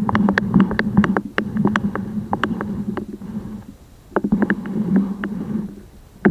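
Compressed air blown at a GoPro's homemade spinning lens cover, heard muffled from the camera's own microphone inside its housing. A rumbling drone runs with many scattered clicks and rattles, drops away about three and a half seconds in, comes back about a second later, and ends with a sharp knock.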